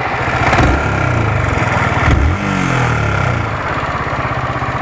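Yamaha R15 V3's single-cylinder 155 cc engine idling and revved up and back down a few times, with a 'kit-kit' ticking from the cylinder head that a mechanic put down to the rocker arms.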